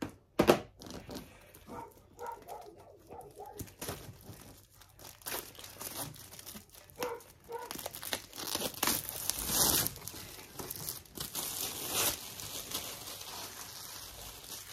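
Plastic and cardboard packaging crinkling and tearing as it is opened and handled by hand, with a sharp knock about half a second in. The rustling gets denser and louder from about five seconds in until near the end.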